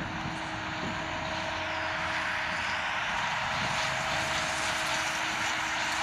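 Case IH Maxxum 115 tractor running steadily under load as it pulls a Massey Ferguson small square baler, a continuous engine and machinery drone with a thin steady whine in it.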